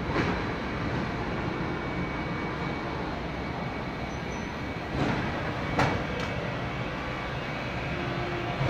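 Steady machinery hum and noise, with a faint steady high tone, broken by a few sharp knocks about five to six seconds in.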